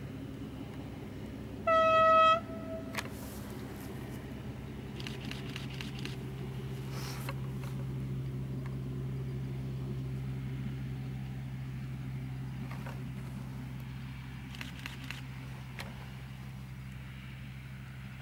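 Vintage ALn 772 diesel railcar (littorina) passing: a single short horn toot about two seconds in, then the steady drone of its diesel engines, growing louder toward the middle and fading as it draws away.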